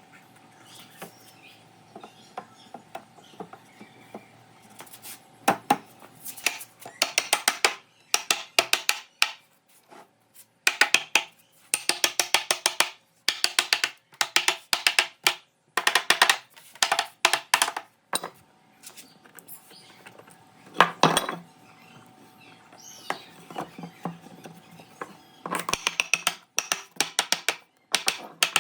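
Bursts of rapid sharp knocking, like a tool striking wood many times in quick succession, broken by short pauses. A faint steady hum runs under it for the first several seconds.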